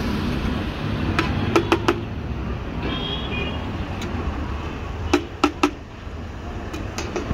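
Slotted metal spatula striking and scraping a large metal tawa griddle while liver is stirred and fried, sharp clacks coming in quick runs of three, twice, with a few single taps. A steady low rumble of street traffic lies underneath.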